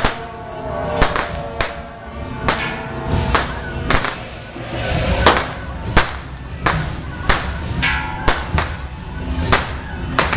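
A temple procession percussion band playing: drum and cymbal strikes at an uneven beat, roughly two a second, with a short high ringing note that comes back over and over.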